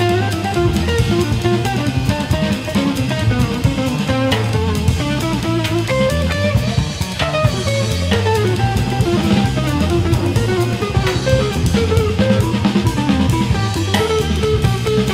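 Instrumental band music: electric guitar over bass and drum kit, with a steady beat.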